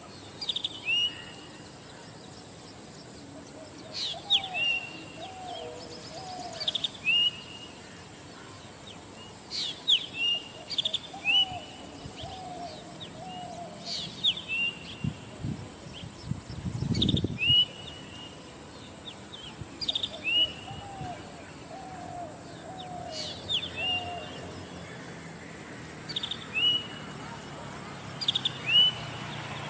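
Zitting cisticola singing: a sharp, high 'zit' call repeated about once every second or so throughout. A lower three-note call from another bird repeats in short runs, and a brief low rumble comes about halfway through.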